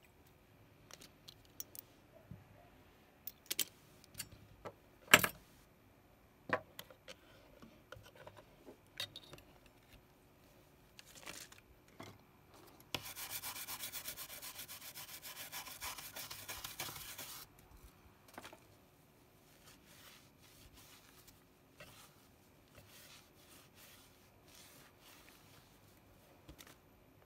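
A brush scrubbing a printed circuit board in rapid back-and-forth strokes for about four seconds, midway through. Before it come scattered clicks and knocks of handling the board and tools, the loudest about five seconds in.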